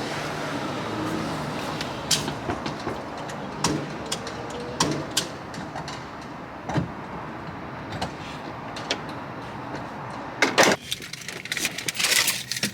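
Car sounds at a gas station: a steady low hum with scattered clicks and knocks of handling around the car, and a louder short burst about ten and a half seconds in.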